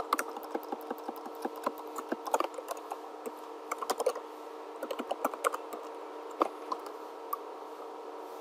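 Typing on a computer keyboard: irregular keystroke clicks in short runs, stopping about seven seconds in, over a steady faint hum.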